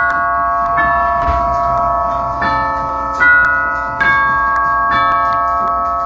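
Grandfather clock chiming: a slow run of struck bell notes, roughly a second apart, each ringing on under the next.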